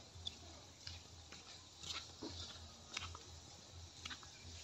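Faint, quiet outdoor ambience with a low steady hum and a few soft, scattered clicks.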